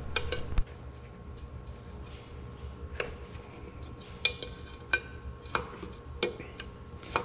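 A string of separate metallic clicks and clinks as a wrench works at the hydraulic pump's line fittings on an Oliver 1855 tractor. A few of them ring briefly, over a low steady hum.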